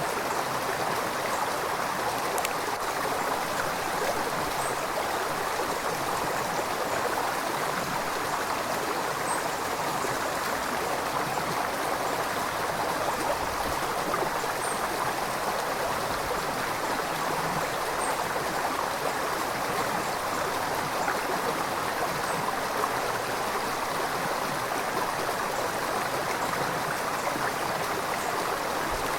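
A river flowing: a steady, even rush of moving water.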